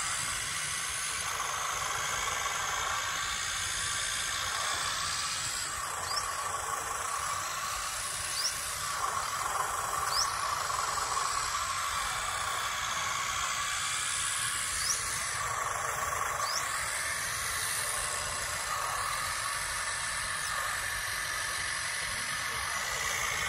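Radio-controlled scale Massey Ferguson 185 tractor running while it pushes soil with its front blade: a steady hissy mechanical sound with a thin whine, from its electric drive and a sound module imitating a tractor engine.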